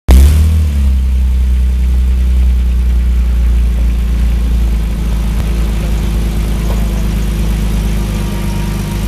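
Porsche 911 rally car's flat-six engine idling steadily, heard from right behind its exhaust; it is a little louder in the first second.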